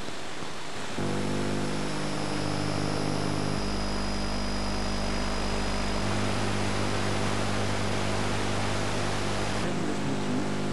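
Steady hiss over a low, buzzing hum of many evenly spaced tones, shifting in steps about one, four and six seconds in and again near the end: noise and interference from a weak, long-distance TV signal.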